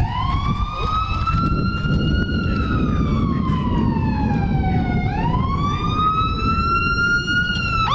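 Emergency-vehicle siren wailing, its pitch slowly rising and falling about once every five seconds, over a steady low rumble. At the very end it switches to a fast yelp.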